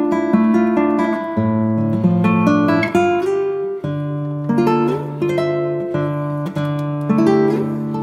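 Background music: an acoustic guitar picking notes and chords over a bass line that changes every few seconds.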